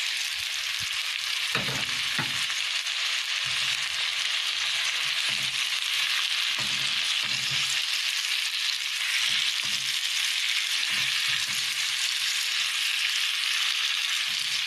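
Sliced onions and chopped tomatoes sizzling in hot oil in a pan, stirred with a utensil that knocks and scrapes against the pan every half second or so. The steady hiss of frying runs throughout.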